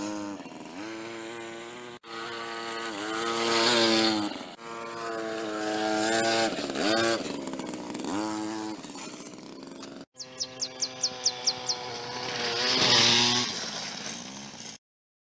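A 60cc dirt bike's small engine revving up and down as it is ridden, its pitch rising and falling with the throttle and breaking off abruptly a few times. About ten seconds in, a quick run of about eight short high chirps sounds over the engine.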